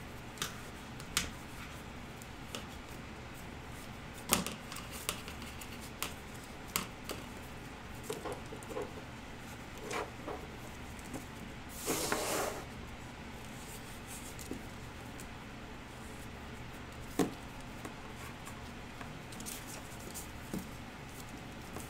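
Handling noise from tape-wrapped armature wire being threaded into a cloth doll body: scattered light taps and clicks, with a short rustle of fabric about twelve seconds in.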